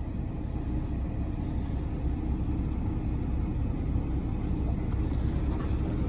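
Steady low rumble of an idling diesel truck engine heard inside the cab, with a few faint clicks in the second half.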